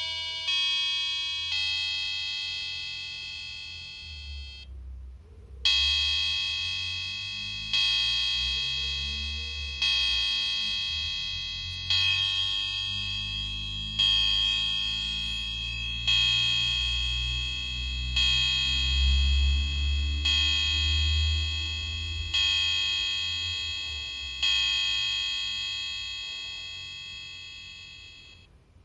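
Electronic wall-clock chime module playing a bell sound through its small speaker. It ends a short chime melody, then strikes one bell tone about ten times, roughly two seconds apart, each ringing out and fading, as the hour strikes.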